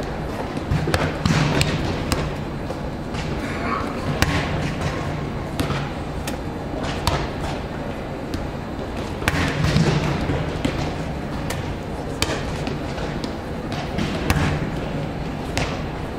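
Volleyballs being hit and bouncing on several courts, a string of sharp smacks and thuds scattered at irregular intervals, over a steady background of many distant voices.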